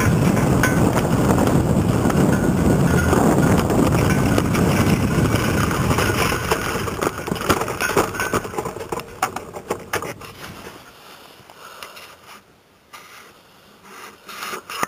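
Nanotrike's small engine and propeller running, its exhaust broken, mixed with wind on the microphone; the sound fades away over several seconds until only scattered faint knocks and clicks remain.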